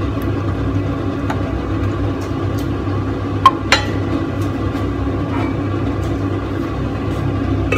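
A few sharp metallic clinks of a utensil against a stainless steel saucepan, the loudest a quick pair about halfway through, over a steady low hum.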